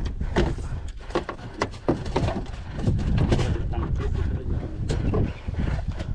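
Water slapping against a small aluminium boat's hull, with scattered sharp knocks and clicks over a steady low rumble.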